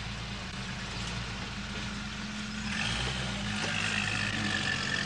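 Engine of an armoured army jeep running close by: a steady low hum that gets louder a little past halfway, with a higher whine joining in.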